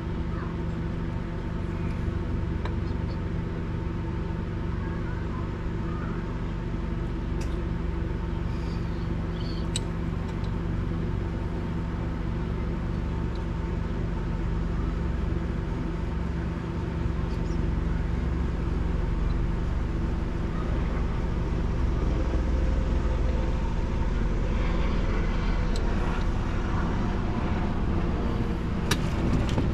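A steady low machine hum with a few faint clicks and taps over it.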